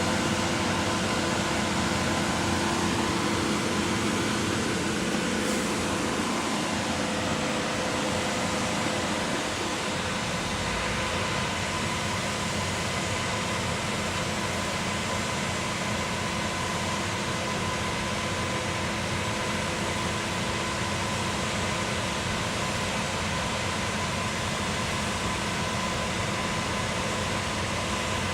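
Concrete pump running steadily: an even mechanical drone with several steady tones, easing slightly in level about ten seconds in.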